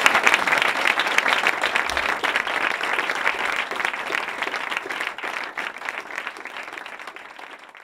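Audience applauding, many hands clapping at once. The clapping is densest at the start and slowly thins and fades out toward the end.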